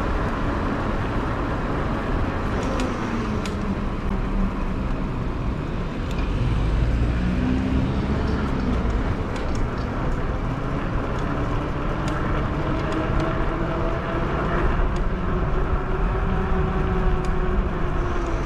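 Riding noise on a fat-tire e-bike: a steady low rumble, with a hum that slowly slides up and down in pitch. A few light clicks come a few seconds in.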